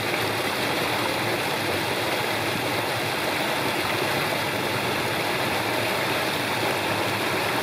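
Small waterfall on a mountain stream: white water pouring over a rock ledge into a pool, a loud, steady rush of water.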